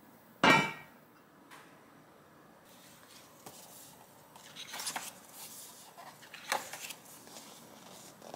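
The cast-iron lid of a Vermicular Rice Pot is set down on the pot about half a second in, giving one loud ringing clank. Later, pages of a paper recipe booklet are turned, rustling twice.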